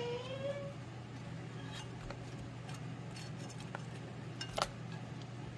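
Light clicks and clinks of utensils against a pan and dish as pan-fried dumplings are served, a handful of scattered taps with the sharpest a little past the middle. A woman's singing trails off at the very start.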